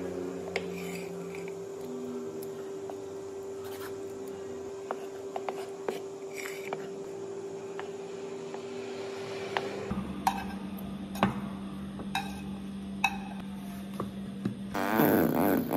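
Light taps and clinks of food being arranged by hand on a ceramic plate, over a steady low hum whose pitch drops about two-thirds of the way through. A louder run of clatter comes near the end.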